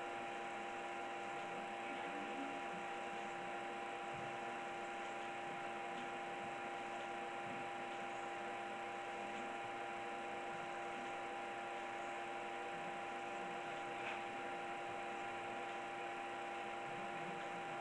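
Steady electrical hum with faint hiss, two even tones held unchanged: room tone.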